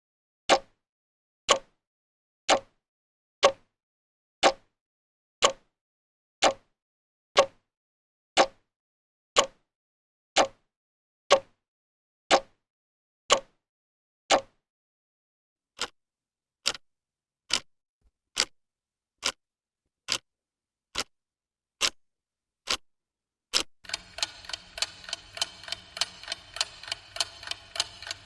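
Clock ticking: loud, sharp ticks about one a second, then after a brief pause somewhat softer ticks at a similar pace. Near the end a much faster ticking, about three ticks a second, comes in over a steady hum.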